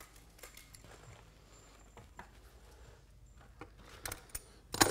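Faint clicks and creaks as locking pliers (Vise-Grip) turn a one-way screw back out of a wooden board, then a few sharp, louder knocks near the end, the loudest just before it ends.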